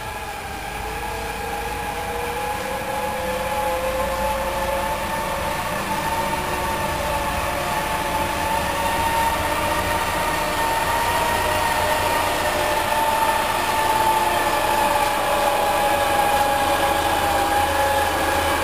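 Propane-powered forklift truck running and driving closer, its engine and a steady whine growing louder as it approaches.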